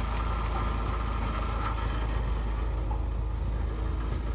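Tractor engine running steadily, driving an old grain mixer whose big auger churns potting soil inside the steel bin, a constant low rumble.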